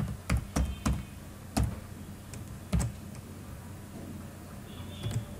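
Computer keyboard typing: about half a dozen separate keystroke clicks at an uneven pace, mostly in the first three seconds.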